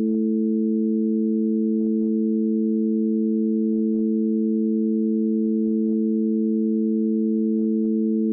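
Steady electronic drone of three pure tones held together as a low chord, with faint short clicks in pairs every second or two.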